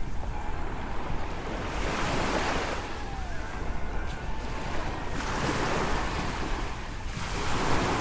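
Small waves breaking and washing up a sandy shore, the hiss of surf swelling every few seconds, with wind buffeting the microphone underneath.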